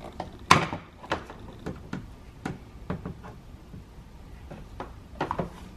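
Sharp plastic clicks and taps from push-pin clips being squeezed with pliers and pulled out of the inner door panel. The loudest click comes about half a second in, with a few more near the end.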